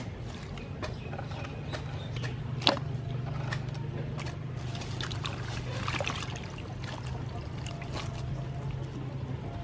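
Water splashing and trickling as hands swish and lift bunches of cilantro and green onion in a stainless steel bowl, with scattered small clicks and one sharp knock a few seconds in. A steady low hum runs underneath.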